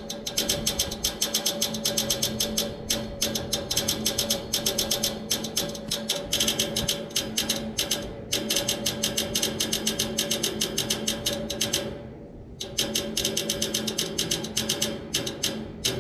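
Outdoor air-conditioner unit clicking rapidly and evenly over a steady hum while its condenser fan is not running. It is a fault that a newly replaced fan motor did not cure. The clicking breaks off for about half a second about three-quarters of the way through, then resumes.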